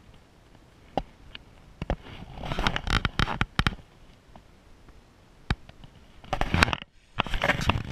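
Rustling and scraping handling noise close to the microphone, in two bursts, with a few sharp clicks between them.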